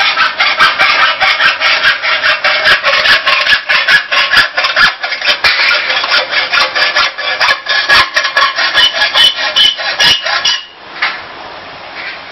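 Roll forming machine running a steel strip through its roller stands: a loud, rapidly fluctuating scrape and squeal of metal on the rolls, full of sharp clicks. It stops abruptly about ten and a half seconds in, leaving a quieter steady noise.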